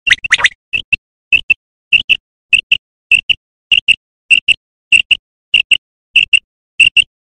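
Common quail calls, a recording played as a hunting lure: short, high paired notes repeating evenly, nearly twice a second. The opening half second holds louder, harsher notes.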